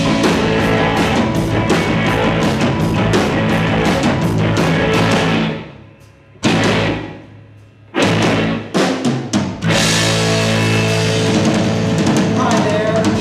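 Live rock band of bass, electric guitars and drum kit playing loudly. About five seconds in the band stops short twice, with a single hit ringing out between the gaps, then comes back with a few staccato hits before playing on in full.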